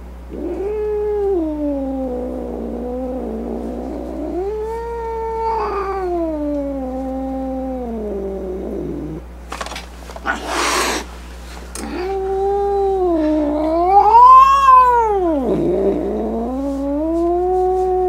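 A grumpy cat yowling: long, drawn-out, wavering moans that slide up and down in pitch. A short burst of hissing comes about ten seconds in, then another long yowl that rises to a loud peak, dips and carries on.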